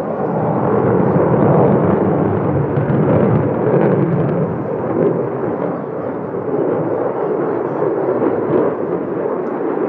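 Pratt & Whitney F135 turbofan of an F-35A Lightning II fighter jet, a loud continuous rumble as the jet pulls a tight high-G turn trailing wingtip vapour. It swells over the first second or so and then holds.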